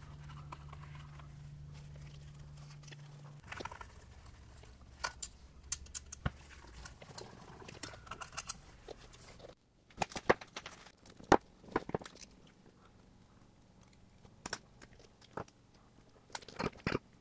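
Handling noise from wiring an electric motor: wires, plastic wire nuts and gloved fingers rustling, crackling and clicking against the plastic junction box, with a few louder sharp clicks about ten to twelve seconds in and again near the end.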